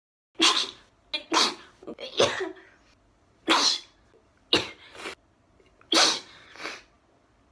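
A person sneezing again and again, set off by a twisted paper string (koyori) tickling the inside of the nose: a quick run of sharp sneezes, about one a second.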